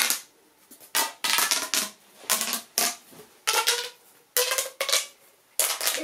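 Plastic pop tube (corrugated fidget tube) being stretched and pushed together again and again. Its ridges snap open and shut in about seven short rattling bursts of pops.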